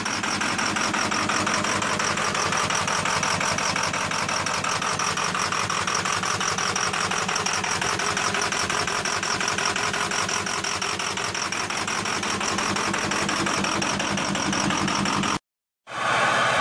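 Ford Power Stroke V8 turbo diesel idling with a steady, fast, even clatter, heard at the open engine bay. After a short break near the end, the same idle is heard at the chrome exhaust tip, with less of the high clatter.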